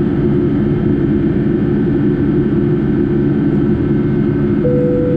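Steady low drone of a Boeing 757-200's Rolls-Royce RB211 engines heard inside the cabin in flight, with a buzzing stack of steady low tones. A short steady tone sounds about four and a half seconds in.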